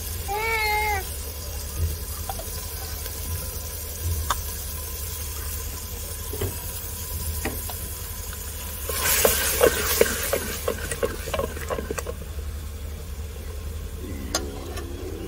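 Cooking sounds from a clay handi of chana dal, loudest about nine seconds in: a three-second burst of sizzling with clicks and scrapes. A cat meows briefly at the start and again near the end, the second call falling in pitch.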